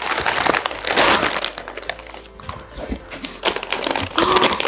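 Plastic food packaging crinkling and rustling as packs of instant ramen are handled, with many small crackles.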